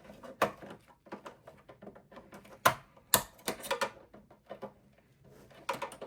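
Power-supply wires being pressed into the wire clips inside a small-form-factor desktop's case: a string of irregular clicks and taps, with two louder clicks about three seconds in.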